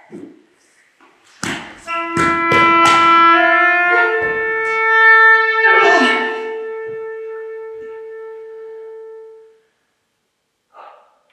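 Music: a quick run of sharp percussive hits, then long steady held notes. The last note holds until it stops shortly before the end.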